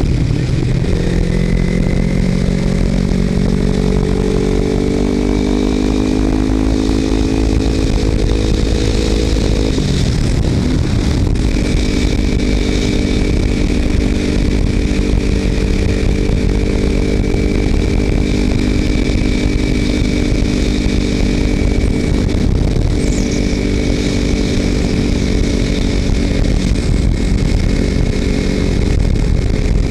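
Kawasaki Ninja 300's parallel-twin engine running through a Screaming Demon slip-on exhaust with the baffle removed, riding at steady revs; the engine note breaks and resettles at a new pitch about ten seconds in. Wind rush on the helmet-mounted microphone runs under it.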